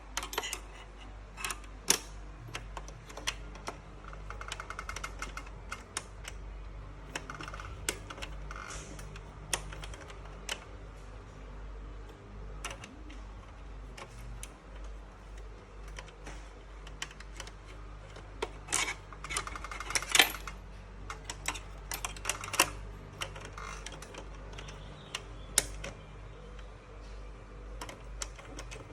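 Scattered sharp clicks and taps, with a few short rasping runs, from small metal hardware being refitted by hand: the 2019 Mac Pro's expansion-slot locks and bracket fasteners being put back. A low steady hum runs underneath.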